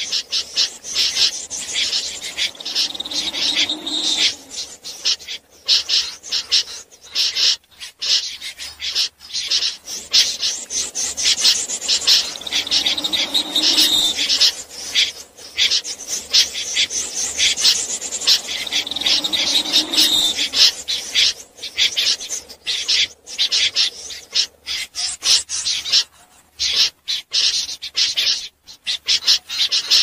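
Snipe giving harsh, rasping calls in rapid, dense runs, broken by a few brief pauses; a recorded call of the kind played to lure snipe into nets at night.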